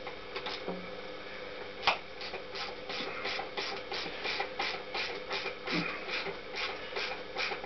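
Hand tool tightening a hose clamp on an engine coolant hose: a rhythmic run of short scratchy clicks, about three a second, starting about two seconds in.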